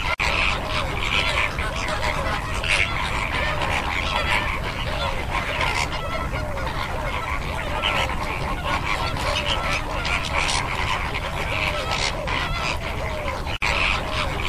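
A flock of greater flamingos calling: a continuous chorus of many overlapping goose-like honks and gabbling calls, briefly cut off near the end.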